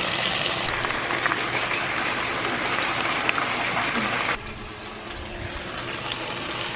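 Salmon fillets sizzling in hot oil in a frying pan, a dense steady sizzle. About four seconds in it drops abruptly to a quieter sizzle with a few small crackles.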